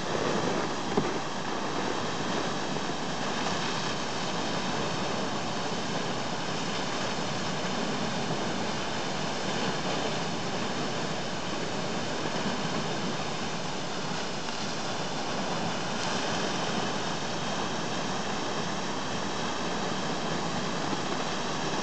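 Alexandra Falls, a large waterfall on the Hay River, pouring into its gorge: a steady, even rush of falling water.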